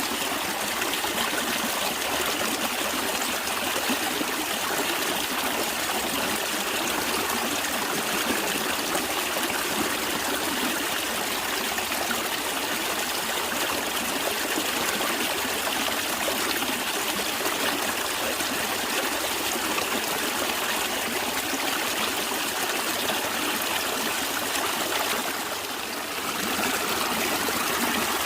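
Stream water flowing and trickling steadily, with a brief dip in level near the end.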